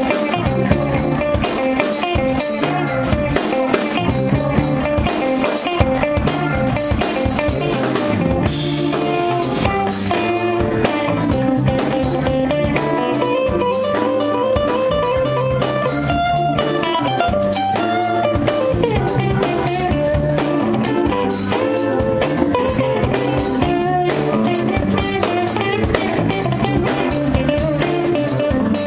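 Live instrumental funk band playing a groove: a semi-hollow electric guitar, an electric bass and a drum kit, with a trumpet playing a passage in the middle.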